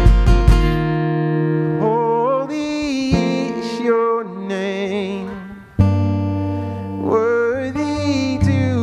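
Live acoustic worship music: a man sings while strumming chords on an acoustic guitar. The sound thins to a brief low point just before six seconds in, then a strong strummed chord comes back in.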